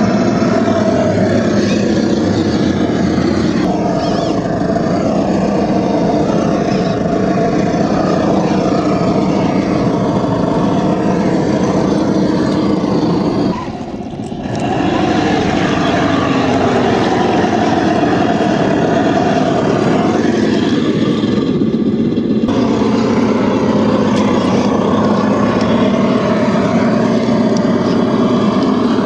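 Truck engine sound for a scale RC off-road truck, running continuously and revving up and down, with a brief dip about fourteen seconds in.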